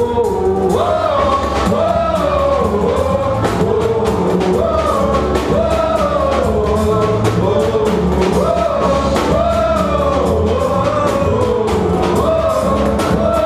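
Live pagode band playing samba: a voice singing the melody over percussion keeping a steady beat and a bass line.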